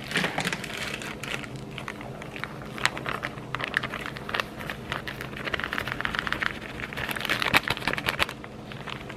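Clear plastic bag crinkling with irregular crackles while tapioca flour is shaken out of it into a steel bowl.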